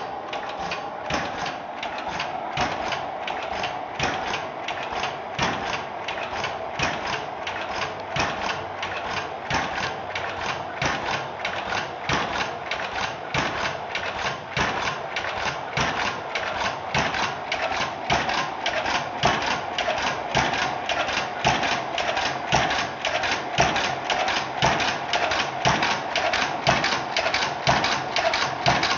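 Antique Blaisdell engine-compressor, a horizontal machine with twin flywheels, running steadily. It makes an even clatter of about three to four knocks a second over a steady high hum.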